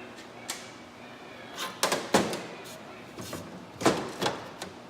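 Several sharp knocks and clanks in two clusters, about two seconds in and about four seconds in, with a few lighter taps between.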